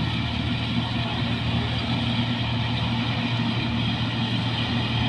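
New Holland 8070 combine harvester running steadily as it works through standing rice, its engine and threshing machinery making a continuous even drone with a low hum.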